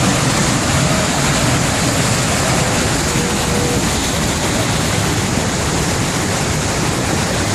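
Iguazú Falls in heavy flow: the steady, loud rushing of falling and churning water from the falls and the fast river below them.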